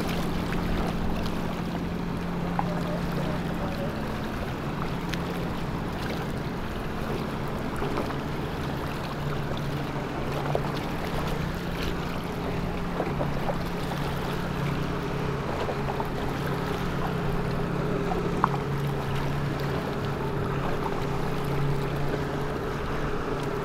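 Twin Yamaha outboard motors on a center-console boat running steadily at cruising speed, an even hum.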